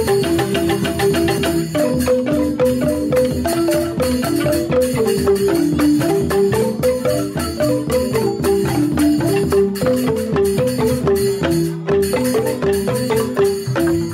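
Balinese joged bumbung gamelan: bamboo-tube xylophones (grantang) struck with mallets in fast interlocking melodic patterns, with a kendang drum. The playing stops suddenly at the very end, leaving a short fading ring.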